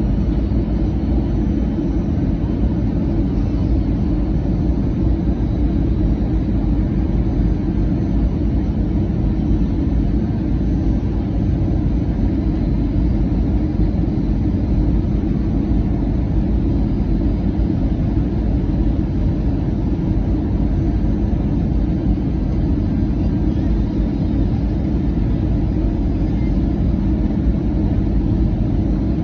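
Airbus A320-200 airliner's engines and airflow making a steady low rumble that holds even throughout.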